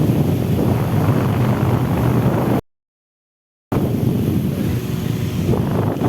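Electric fan running loud and close, its air rushing over the microphone with a steady low hum. The sound cuts out to silence for about a second midway, then comes back.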